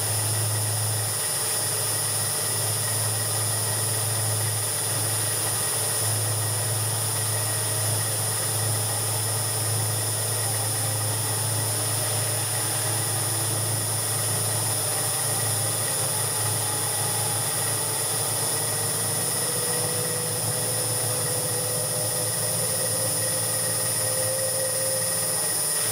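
Homemade CNC milling machine milling a cam: the spindle runs steadily while an end mill cuts the cam's profile, a continuous machining noise with a steady high whine over a low hum.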